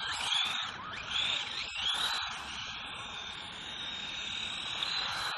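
Electric motor of a small 1/18-scale 4WD RC buggy whining as it drives, the pitch rising and falling several times with throttle changes, then holding steady in the second half, over a hiss of tyres and drivetrain on smooth concrete.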